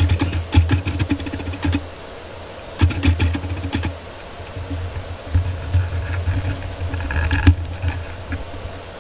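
Typing on a keyboard: quick runs of key clicks in three bursts of a second or two each, the last ending in one sharp click.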